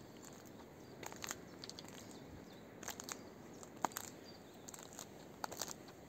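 Footsteps on a fallen tree trunk and dry brushwood: irregular crunches and crackles of bark and twigs under the shoes, with one sharper snap about four seconds in.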